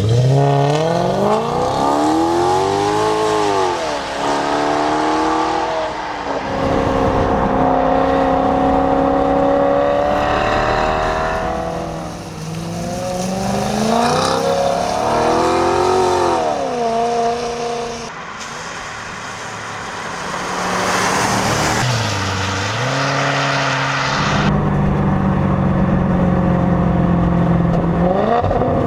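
Maserati Quattroporte's 4.2-litre V8 engine revving, its pitch climbing and falling several times as the revs rise and drop, with stretches of steady running in between.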